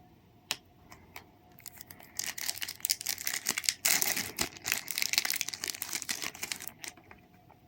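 A Match Attax trading-card packet's plastic-foil wrapper being torn open and crinkled: a couple of small clicks, then about five seconds of dense crackling that stops shortly before the end.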